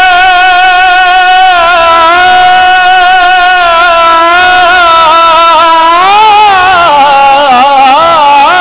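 A man's solo voice singing a naat, holding one long, slightly wavering note. About six seconds in, the note rises and breaks into quick ornamented turns.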